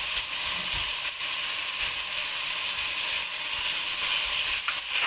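Chicken and tomato masala sizzling in a metal pot over a full gas flame: a steady hiss, with a plastic spatula now and then scraping against the pot as it is stirred.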